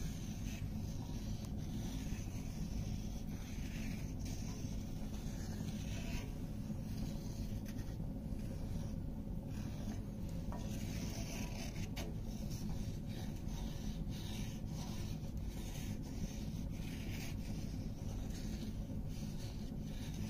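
A wooden spoon stirring thin milk gravy in a cast iron skillet, scraping and rubbing across the pan's bottom in repeated irregular strokes.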